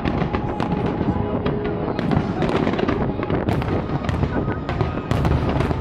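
Fireworks display with aerial shells bursting in quick succession: many sharp bangs several times a second over a continuous low rumble.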